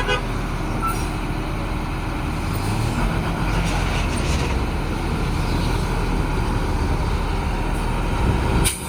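Truck engine running steadily, with a brief break in the sound near the end.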